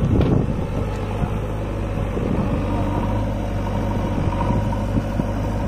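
Diesel engines of a JCB backhoe loader and an HMT tractor running steadily at low revs, with a brief clatter at the very start.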